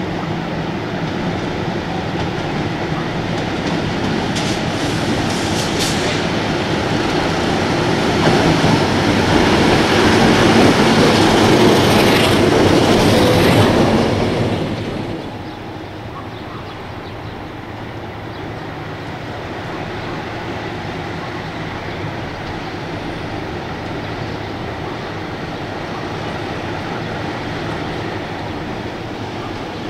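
MLW diesel locomotive hauling a freight train: the engine runs with a steady drone and the wheels clatter over the track, growing louder as it comes near, with brief high wheel squeal about five seconds in. About halfway through it cuts off suddenly to a quieter steady rumble of a diesel locomotive.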